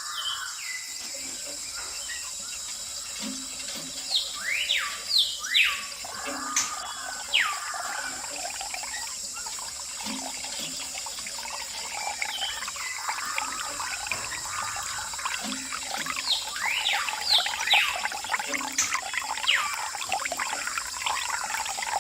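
Water trickling and splashing in irregular spurts, in two busier stretches, over a steady high hiss.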